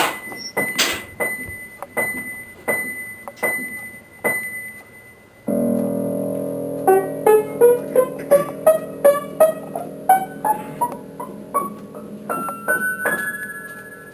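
Background piano music. It opens with a string of short struck notes, then about halfway through a held chord comes in, under a quick rising run of notes.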